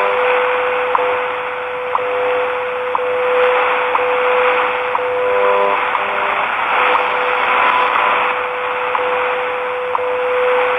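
WWV shortwave time signal on 10 MHz through a portable radio's speaker: a steady tone broken by a short tick once a second, under a hiss of shortwave static. The tone cuts off at the very end.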